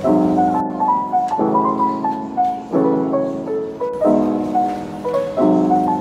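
Background piano music: sustained chords struck about every second and a half, under a simple melody in the upper notes.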